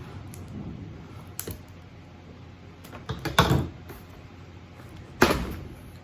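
Cardboard ceiling-fan box being forced open: a small click, then two louder bursts of cardboard tearing about three and five seconds in.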